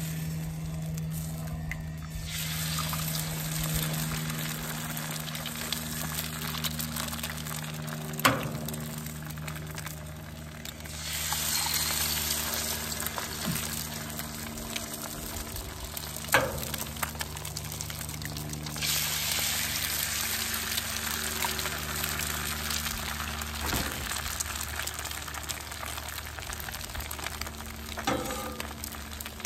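Eggs frying on an oiled Blackstone flat-top griddle: a sizzle that swells twice as fresh eggs hit the hot steel. A few sharp clicks of eggs being cracked.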